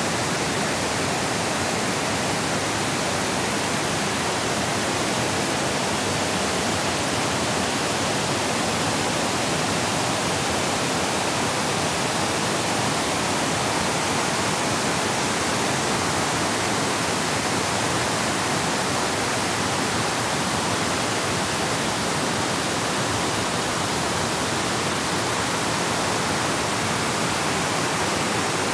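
River water rushing over low weirs, a steady even hiss that does not change.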